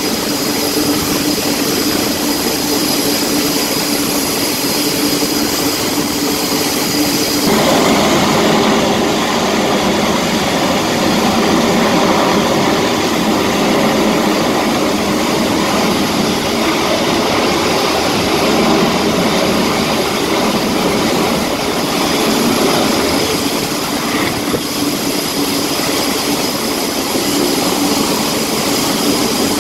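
F/A-18 jet engines running at high power on an aircraft carrier's flight deck: a continuous loud rush with steady whining tones. It steps up sharply about seven seconds in and eases a little near the end.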